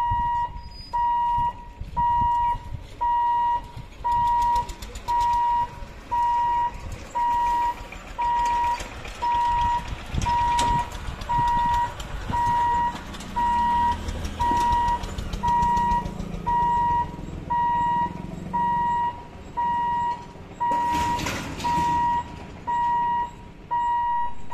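Level-crossing warning buzzer beeping: one electronic tone repeating evenly, a little over once a second, the signal that the gate is closing for a train. Under it, motor vehicles crossing the tracks rumble past midway, and there is a short burst of noise near the end.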